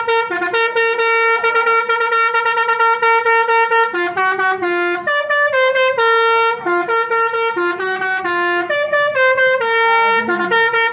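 Multi-tone 'telolet' bus air horn playing a tune: bright, brassy held notes that step up and down in pitch, with short breaks between phrases.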